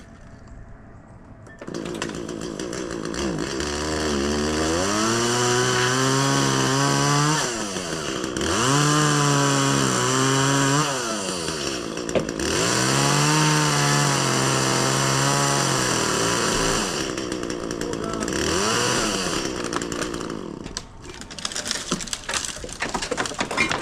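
Gas chainsaw starting up and cutting into a tree trunk. The engine revs and sags in pitch over three long cuts, with a shorter rev after them, then drops away about 20 seconds in. A spell of crackling follows near the end.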